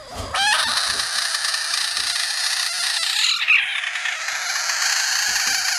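Budgett's frog poked by a finger, giving one long, harsh, loud scream with its mouth wide open, starting about half a second in: its defensive distress call.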